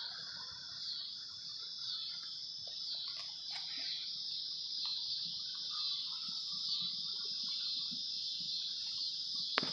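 Steady high-pitched chorus of insects, with a few faint scattered knocks and a sharper click near the end.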